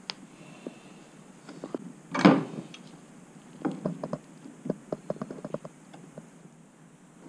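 Hands and pliers working paracord through a small eyelet on a plastic kayak hull: a brief scrape about two seconds in, the loudest sound, then a run of small clicks and taps as the pliers grip and pull the cord through.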